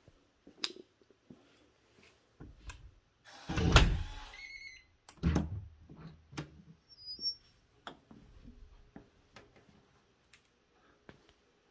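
A door being handled and opened: a loud rush about four seconds in, a thump about a second later, and scattered clicks and knocks.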